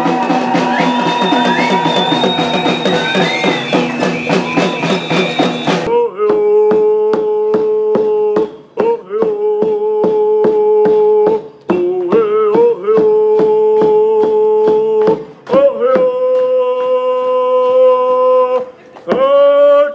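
Crowd cheering and whooping over steady drum beats. About six seconds in, this gives way to a single voice singing long held notes to the drum, which keeps an even beat of about three strikes a second.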